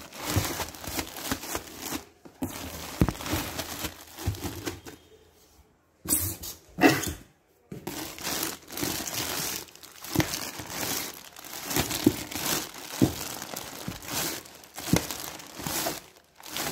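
Plastic polybags around folded t-shirts crinkling as they are handled and shifted in a cardboard box, in uneven spurts with a few short pauses and occasional soft knocks.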